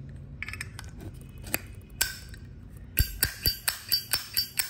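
Metal Zippo lighter being handled: scattered sharp metallic clicks, then a quick run of about eight clinks with a ringing high tone in the last second and a half.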